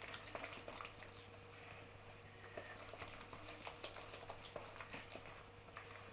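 A utensil stirring and mashing a thick, wet pumpkin-and-potato mash with cheese in a glass bowl: soft squelching and scraping with light irregular clicks against the glass.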